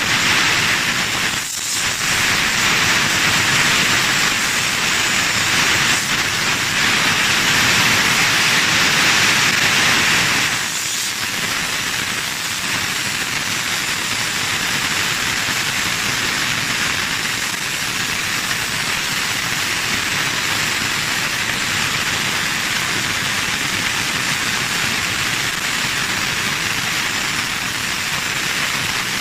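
Refrigerant gas hissing steadily out through the hose of a refrigeration gauge manifold as the compressor is emptied of its refrigerant. The hiss eases a little about ten seconds in, then runs on evenly.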